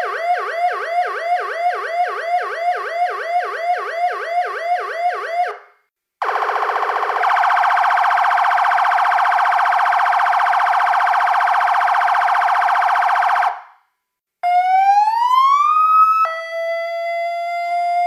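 Vixen Horns VXS7920 electronic siren's 100-watt speaker plays three of its warning tones in turn. First a fast warble of about three sweeps a second, which stops about five and a half seconds in. After a short break comes a steady buzzing blare for about seven seconds, and then a tone that rises slowly in pitch.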